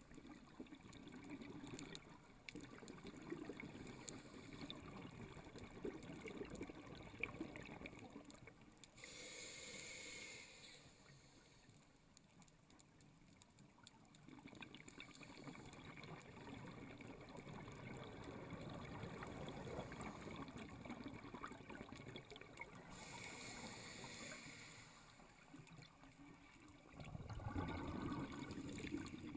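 A scuba diver breathing through a regulator underwater: long stretches of exhaled bubbles gurgling, broken twice by the short hiss of an inhalation through the regulator, the two breaths about fourteen seconds apart.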